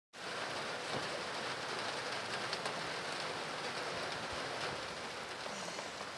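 Steady rain falling, an even hiss of drops that cuts in suddenly out of silence.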